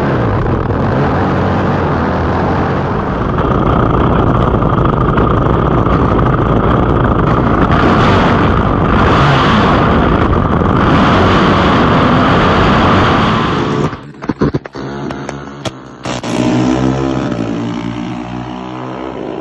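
Drag-race engines running loud at full throttle, the sound dense and rough for about fourteen seconds. It then breaks up abruptly and gives way to a single engine revving and settling with a clear pitch.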